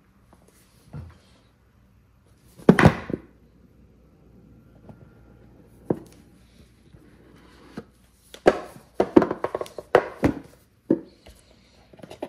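Cardboard camera packaging handled on a countertop: a thump about three seconds in, a single sharp tap a few seconds later, then a cluster of clicks and scrapes as the inner box is opened and the camera lifted from its tray.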